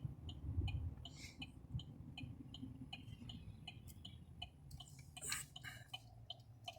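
Chevy Silverado's blinker ticking in the cab, faint and even at about three ticks a second, over a low rumble.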